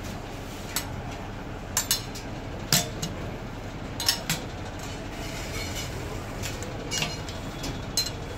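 Irregular sharp metal clinks and knocks, about eight of them, as a spring-loaded metal bracket is handled and seated onto a plastic sink basin, over steady background noise.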